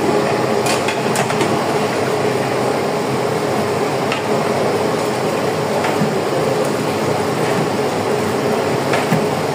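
Large aluminium pot of mutton curry boiling on a gas stove, with a steady rushing noise throughout. A long metal ladle stirs it, knocking against the pot a few times.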